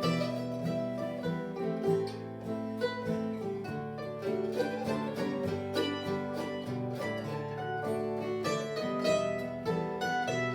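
A 1923 Lloyd Loar–signed Gibson F-5 mandolin, guitar and bass playing a waltz together: quick plucked mandolin and guitar notes over steady bass notes.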